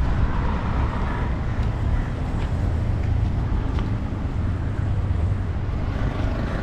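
Steady low rumble of a fishing boat's engine running, with a few faint clicks.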